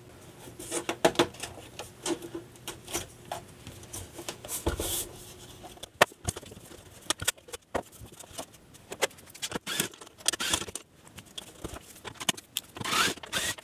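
Handling noise from opening an Agilent E3649A power supply: irregular clicks, knocks and short scrapes of its metal case being turned on the bench and a screwdriver working the rear screws, with a longer scrape near the end.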